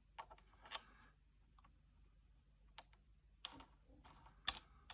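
Faint, scattered clicks and light handling of small plastic action-camera parts and mount, about half a dozen soft clicks spread unevenly over several seconds.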